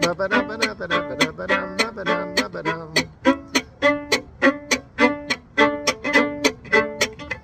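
Fiddle playing bluegrass chop backup: sharp, scratchy percussive bow chops mixed with short bowed chords in a steady, driving rhythm of about four or five strokes a second.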